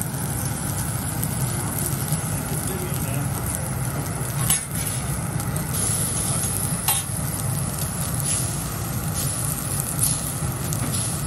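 Prawns and vegetables sizzling on a teppanyaki steel griddle while a metal knife and fork scrape and tap on the plate, with three sharp clicks of the knife on the steel, the last as the prawns are chopped. A steady low hum runs underneath.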